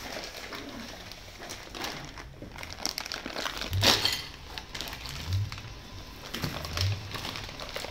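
Plastic packaging crinkling and rustling as hose clamps and small parts of an air intake kit are unwrapped by hand, with one sharp, louder crackle about four seconds in.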